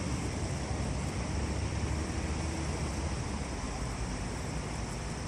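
Steady outdoor background noise: a low, unsteady rumble under an even hiss, easing slightly toward the end.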